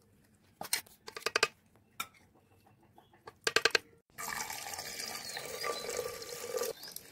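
A steel spoon knocks against a glass bowl of thick curd in two quick clusters of sharp clicks. About four seconds in comes a steady pouring sound: raw-mango liquid being poured in a stream into a clay pot, stopping shortly before the end.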